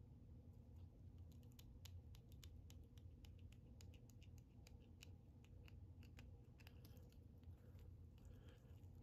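Near silence over a low steady hum, broken by many faint, irregular ticks and clicks of fingers working fine wire and thread at a fly-tying vise, twisting the brassie-size wire to break it off behind the bead.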